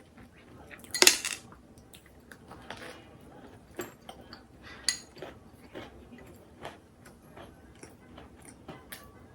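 Dishes and cutlery clinking and clattering in a series of separate knocks, the loudest about a second in.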